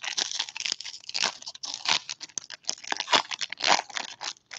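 Foil wrapper of a 2018 Topps Update jumbo pack of baseball cards being torn open and crinkled by hand: an irregular run of crackling and tearing.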